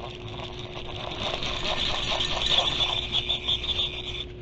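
Fishing reel running with a fast, steady ticking whir, the sound of its mechanism as line is reeled or pulled against the drag; it stops abruptly near the end.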